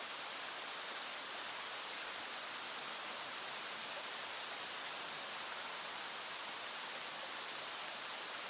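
A small stream flowing, a steady even rush of running water.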